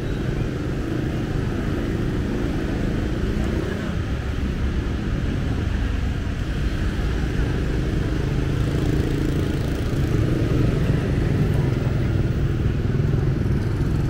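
Street traffic dominated by motorbike engines, running continuously and growing louder about two-thirds of the way in as vehicles pass close.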